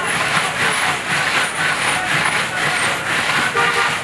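Road traffic running past, with a short car horn toot near the end.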